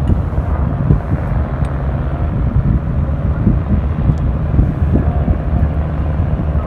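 Steady low rumble of a boat's engine running underway.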